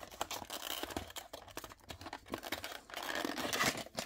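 Small cardboard box being opened by hand and a clear plastic blister slid out of it: a run of light clicks, papery scraping and plastic crinkling, busiest near the end.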